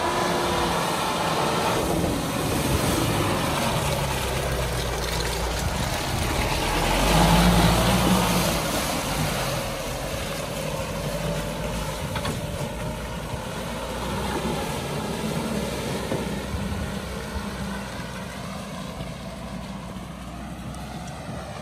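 Mahindra Bolero 4x4 pickup's diesel engine pulling the truck through a muddy track. It grows louder as the truck comes up and passes, loudest about seven to eight seconds in, then fades slowly as it drives away.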